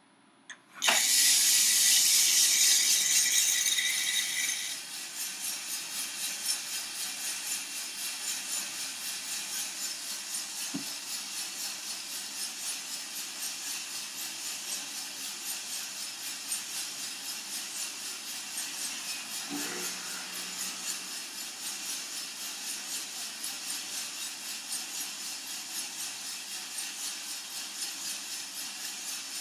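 Coffee beans poured into the hot drum of a Coffee-Tech FZ-94 lab roaster, a loud rushing hiss for about four seconds, then the charged beans tumbling in the turning drum with a steady rhythmic rattle.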